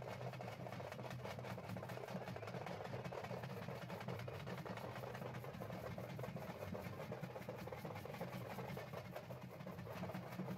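Faint, muffled percussion from a street procession, with steady drumming over a constant low hum.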